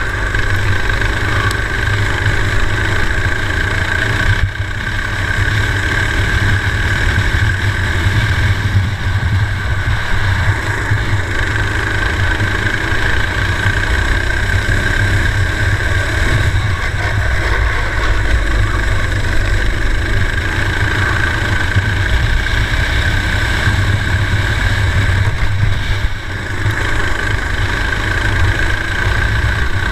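Four-stroke race kart engine running hard at racing speed, heard from on board the kart. The sound is steady, with two brief dips in level, about four seconds in and near the end.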